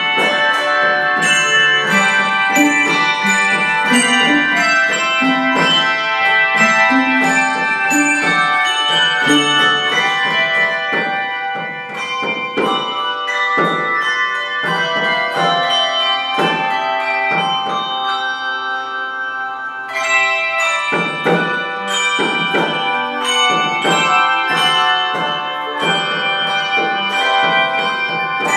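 Handbell choir playing a piece: many bells struck in quick succession, their ringing tones overlapping. Around the middle the playing thins to a few long-ringing notes, then fills out again about two-thirds of the way in.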